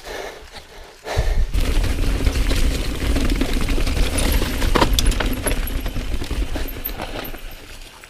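Mountain bike riding over a rough, rocky trail strewn with dry leaves: dense rattling and clattering of the bike and camera mount over rocks, with heavy wind rumble on the microphone. It starts about a second in and eases off near the end.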